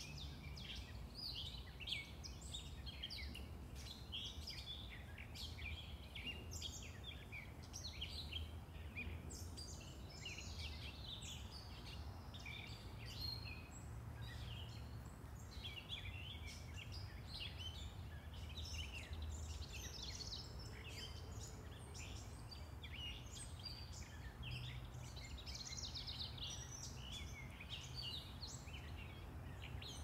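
Several backyard birds singing and chirping in a dense, overlapping chorus of short high calls and trills, with a low, steady hum of town traffic underneath.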